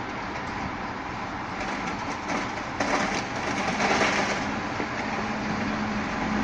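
Garbage truck running with its Rotopress rotating-drum compactor turning, crushing bulky household waste. About three seconds in, a louder burst of cracking and clattering sets in as the load breaks up, and a steady hum rises soon after.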